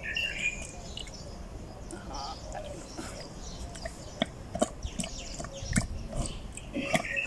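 Scattered light knocks and taps of a cracked ostrich eggshell against a bowl as the egg is shaken out, the yolk sticking inside the shell. A bird calls briefly near the start and again near the end.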